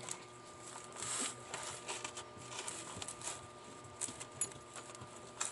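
Faint rustling and small clicks of hands handling and pulling apart the furnace's wire connectors.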